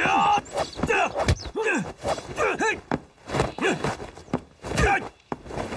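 Fighters' shouts and grunts of effort in a hand-to-hand kung fu fight, with several sharp hits of punches and kicks landing.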